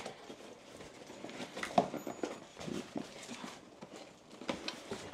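A cardboard box being handled and opened: scattered scrapes, rustles and light knocks of cardboard, the sharpest knock about two seconds in and another near the end.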